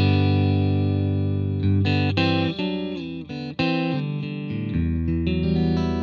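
Stratocaster-style electric guitar played through an Oldfield Model 6420 amplifier. A chord is struck at the start and rings for nearly two seconds, then comes a quick run of changing chords and notes, and another chord is held near the end.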